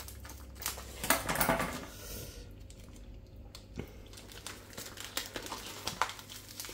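Plastic sausage wrapper crinkling and rustling as it is snipped with scissors and then pulled apart by hand, in a string of sharp crackles with the loudest rustle about a second in and a quieter spell in the middle.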